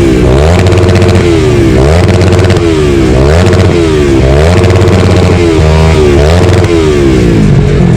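2012 Kawasaki ER-6n's parallel-twin engine, breathing through an Akrapovic exhaust with the dB killer removed, revved up and down repeatedly, its pitch rising and falling about once a second. Loud and close.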